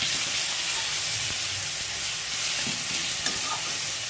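Freshly added ginger, garlic and chilli paste sizzling steadily in hot oil in a kadai with fried onion, cumin and bay leaf. A metal spatula stirs it through.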